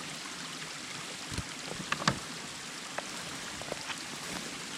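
Steady rushing of a small forest spring's running water, broken by a few sharp clicks and knocks, the loudest pair about two seconds in.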